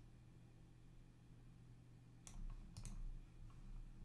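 Computer mouse clicking over a faint steady low hum: one click about two seconds in, then a quick pair of clicks half a second later.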